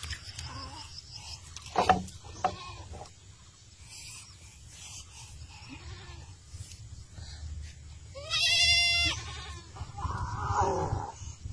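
A single wavering, bleating animal call about eight seconds in, the loudest sound here, over a low rumble with a few knocks and rustles.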